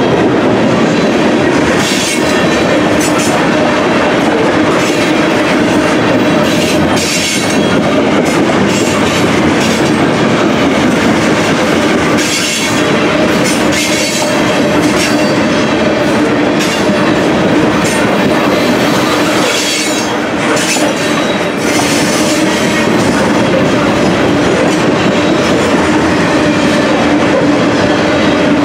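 Freight train's grain hopper cars rolling past, a steady loud rush of steel wheels on rail with repeated clacks over rail joints and a steady wheel squeal running underneath.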